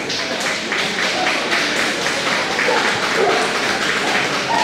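Spectators clapping in a large hall, a dense patter of hand claps with a few voices underneath.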